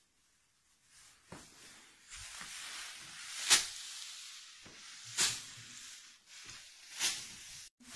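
Bundles of straw beaten by hand against the hub of a wooden cart wheel: a few soft strikes, then three loud sharp strikes roughly every two seconds, with the straw rustling and hissing between them. This is the threshing step in making Schab thatching bundles, knocking the grain and short stalks out of the straw.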